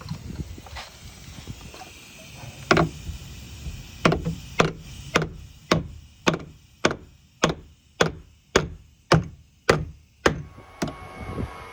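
Hammer blows on wood: a single strike, then a steady run of about a dozen blows at a little under two a second.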